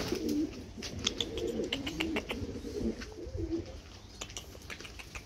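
Domestic pigeons cooing in a loft: low wavering coos that trail off after about three and a half seconds, with scattered light clicks among them.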